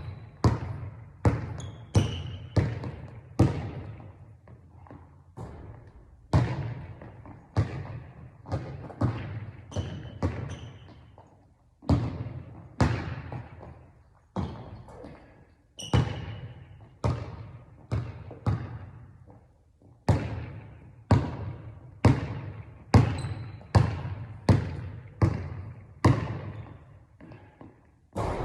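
A basketball being dribbled: sharp bounces on a hard floor, about one every half second or so, each with a short ringing tail, broken by a few brief pauses.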